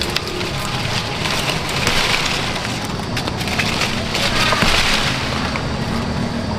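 Persimmon leaves and twigs rustling, with small snaps and clicks, as fruit is picked and put into a cloth bag. The rustling swells about two seconds in and again a little past four seconds.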